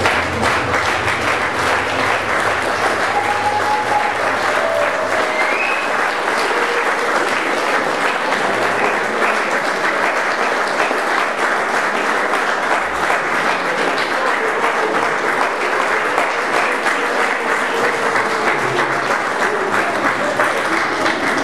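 An audience applauding with steady, dense clapping that fills the hall.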